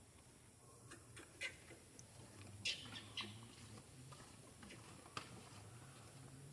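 Faint, scattered clicks and ticks from monkeys handling and chewing food, a handful over a few seconds, over a low steady hum.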